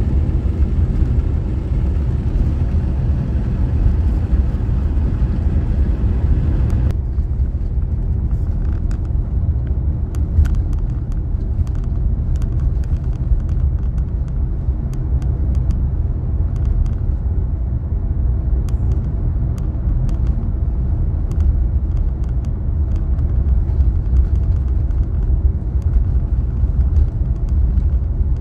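Car driving on a paved road, heard from inside the cabin: a steady low rumble of tyres and engine, with the higher hiss thinning out about seven seconds in and scattered faint ticks after.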